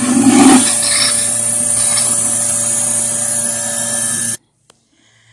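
Milking machine under vacuum sucking rinse water through the claw and hose: a steady hissing suck over a low pump hum, with a louder slurp near the start. It cuts off suddenly about four seconds in.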